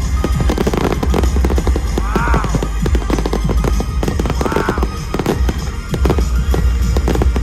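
Fireworks display: a dense run of bangs and crackles over loud show music with a heavy bass.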